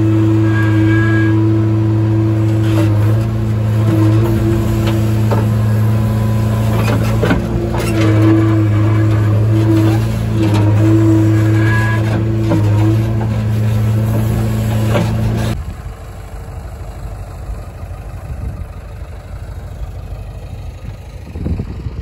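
Heavy diesel engine running at steady high revs with a loud, even droning note. About two-thirds of the way through it cuts off abruptly to a quieter, rougher engine rumble.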